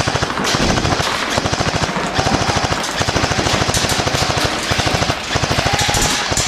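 Airsoft guns firing on full auto: a long, rapid, even rattle of shots with a brief break about five seconds in.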